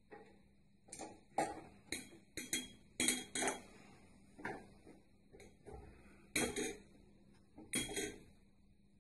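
Irregular handling noises from a scoped rifle: sharp metallic clicks, clinks and knocks, some in quick pairs, as the rifle is turned over and its scope mount is worked by hand.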